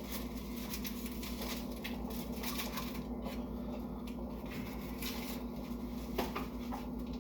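Close-miked chewing and eating sounds: irregular soft wet clicks and smacks from a mouthful of sushi, over a steady low hum.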